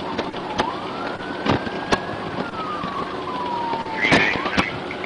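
An emergency vehicle's siren wailing, its pitch slowly rising and then falling once, with sharp clicks scattered through it and a short louder burst of noise about four seconds in.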